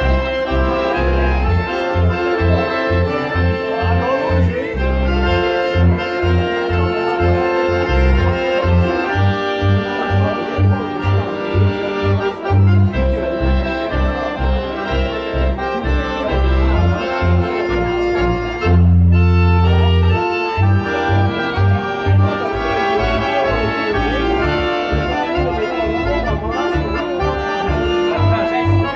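Accordion-led old-time dance band playing live: accordions carry the melody over a steady pulsing bass line with guitar. About 19 seconds in, the bass holds one long low note before the pulse resumes.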